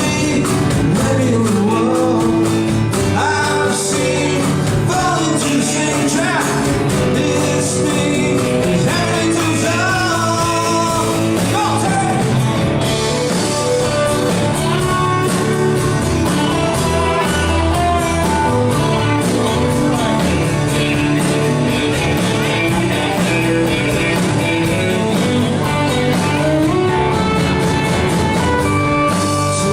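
A live band playing a song with a singer.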